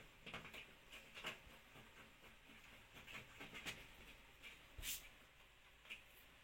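Faint, scattered clicks and rustles of hands handling a desktop PC case and its cables, with one louder click near the end.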